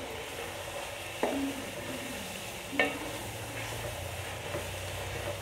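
Mutton pieces sizzling in hot oil in a metal pot while a wooden spoon stirs and scrapes them, with two sharp knocks of the spoon against the pot, about a second in and near three seconds. It is the bhunai stage: the boiled meat being browned in oil with its spices.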